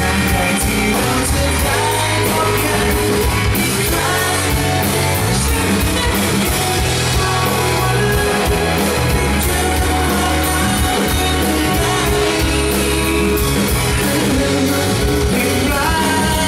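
Live pop-rock band playing through a PA: drum kit, electric bass, electric guitar and keyboard, with a male lead vocalist singing into a microphone.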